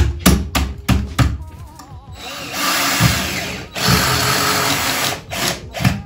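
Cordless drill driving screws to fix a metal shelf bracket to a wall, running in two bursts of about a second each, with a series of sharp knocks in the first second and again near the end.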